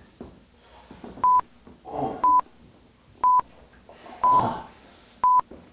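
Five short electronic beeps at one steady pitch, one per second: a countdown.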